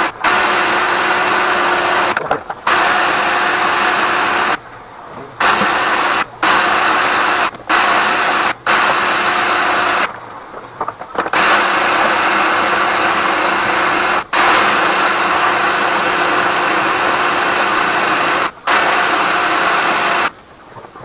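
Flexible-shaft drain cleaning machine spinning its cable inside a blocked drain pipe: a steady motor whine with a rushing noise. It stops briefly about eight times and cuts off near the end.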